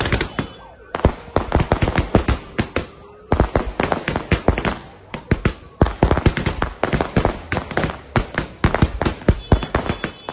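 Firecrackers going off in a rapid, irregular barrage of sharp cracks, many a second, with brief lulls between clusters.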